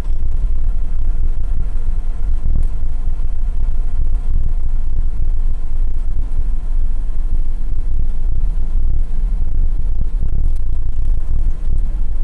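Mercedes-Benz Unimog's engine running as the truck drives along a rough dirt track, heard from inside the cab as a steady, deep drone.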